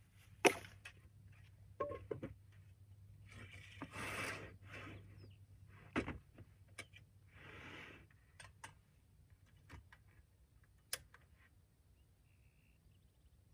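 Camp gear being handled at a folding table: a sharp knock about half a second in, a few lighter clicks and knocks, and two stretches of plastic-bag rustling.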